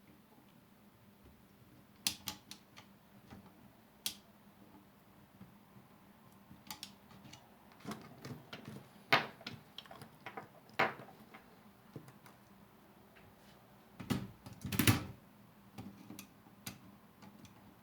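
Scattered metal clicks and knocks from a Juwel Model 3 typewriter's mechanism as it is handled and partly taken apart, with a few louder knocks in the middle and a cluster of heavier clunks near the end.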